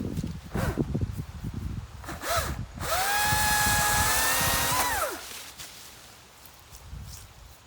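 Battery chainsaw (STIHL MSA 200C) motor: a short blip of the trigger, then about two seconds of steady high whine running free, ending as the trigger is released and the motor winds down. Irregular handling knocks and rustling come before it.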